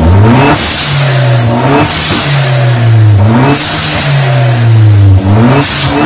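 Turbocharged car engine revved several times, its pitch rising and falling, and with each throttle lift an aftermarket blow-off valve vents excess boost pressure to the air with a loud hiss: the 'turbo sound' car enthusiasts like to hear.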